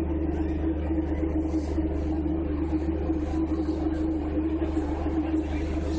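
Car ferry's engines droning steadily under way, a constant low hum with a steady mid-pitched tone over it.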